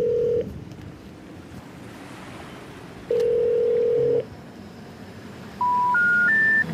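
Telephone call tones: a steady low ringback tone that stops just after the start and sounds again for about a second around three seconds in, then three short beeps climbing in pitch near the end, the special information tone that comes before a 'number not reachable' message.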